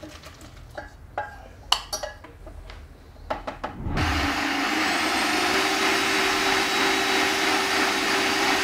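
A few clinks and knocks, then about three seconds in an electric blender's motor spins up. It runs at a steady, loud whir with a constant hum, blitzing hot tomato and red pepper soup to a purée.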